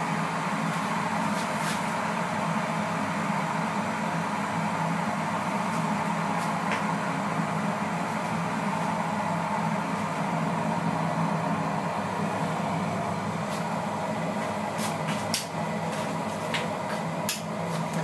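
KitchenAid electric kettle heating water, making a steady noise, with a few sharp clicks near the end.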